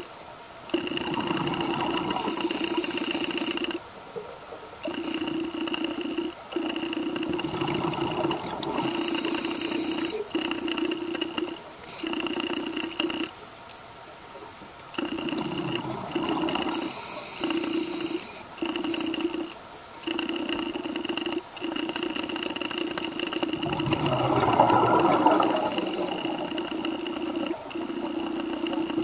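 Underwater sound of a scuba diver breathing through a regulator: a rush of exhaled bubbles about every eight seconds, the loudest near the end. Under it, a steady humming tone keeps cutting out and coming back every second or two.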